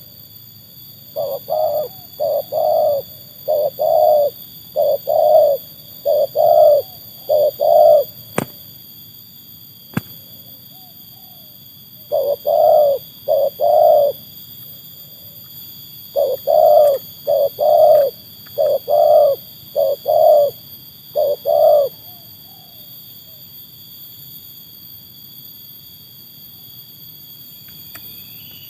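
Spotted dove (tekukur) cooing: three runs of repeated deep coos, the longest in the first few seconds and the last ending a little past twenty seconds in.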